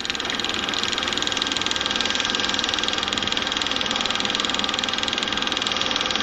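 Film projector running: a steady, rapid mechanical clatter.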